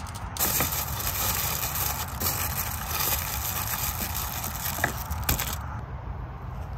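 Food sizzling as it cooks: a steady crackling hiss that starts abruptly about half a second in and cuts off near the end, with a few sharp clicks, over a low rumble.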